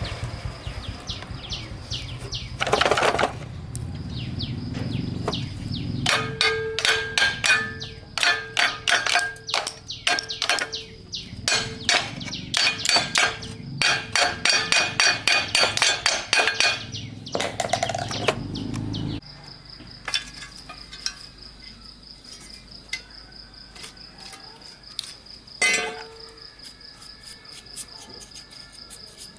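Rapid metallic tapping and knocking, many strikes a second, over a low hum that cuts off abruptly about two-thirds of the way in. After that, crickets chirp steadily, with one more knock near the end.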